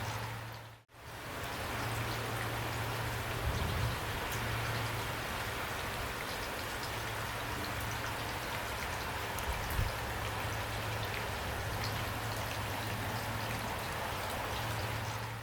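Heavy rain falling steadily, a dense even hiss of drops with a steady low rumble underneath. About a second in, the sound briefly fades out to silence and back in.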